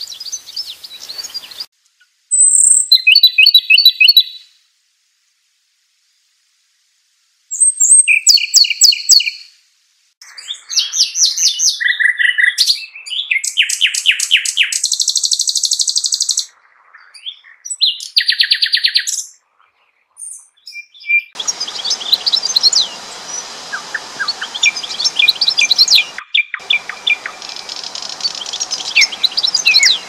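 Songbird song played as a string of separate excerpts with short silent gaps between them, full of fast trills and chirps. The last excerpt, from about two-thirds of the way in, plays over a steady background hiss.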